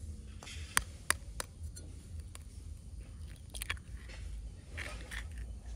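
Close handling noise: three sharp clicks in quick succession, then more clicks and a crunchy rustle near the end, over a low steady rumble.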